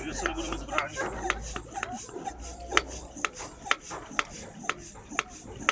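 Hand-operated vacuum pump being worked in steady strokes, sucking the air out of a rescue vacuum mattress so that it stiffens around the patient. Each stroke gives a sharp click, about two a second, with a rasping rub between them.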